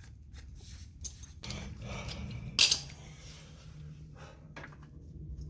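Light metallic clinks and rattles of hand tools and steel suspension parts being handled, with one sharper clank about two and a half seconds in, over a faint steady low hum.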